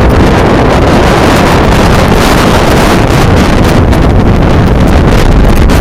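Strong gusting wind buffeting the camera microphone, a loud, steady rumble and roar of wind noise.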